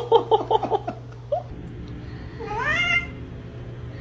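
A cat meowing: a quick run of short chirps in the first second, then one longer rising meow about two and a half seconds in.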